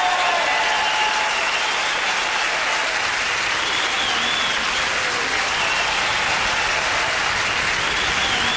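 Large concert audience applauding and cheering, a steady wash of clapping.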